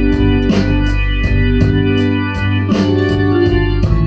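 Blues-rock band playing live: held organ chords over bass and a steady drum beat.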